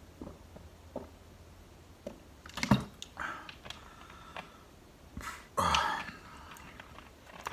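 Gulps of water drunk from a plastic bottle, then a sharp knock about two and a half seconds in, and a louder short rush of noise about six seconds in.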